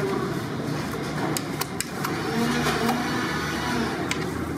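Steady machine-like hum, with a few sharp clicks about a second and a half in and again near the end.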